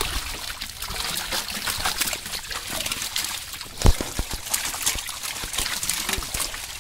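Dozens of fish thrashing and splashing in shallow water inside a drawn-in net as they are picked out by hand, with water trickling and dripping and many small wet slaps. One loud thump a little before four seconds in.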